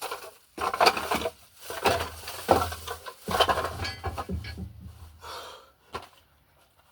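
A man panting in heavy heat, with irregular rustling and knocks as he shifts about, fading out near the end.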